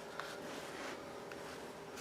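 Quiet room tone with a faint steady hum and two faint small clicks, one just after the start and one about a second in.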